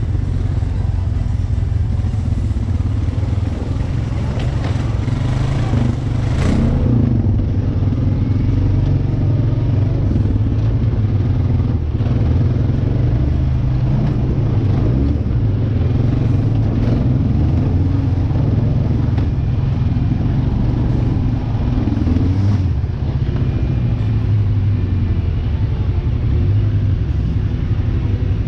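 Off-road vehicle engine running steadily and loud, with a few brief knocks and rattles.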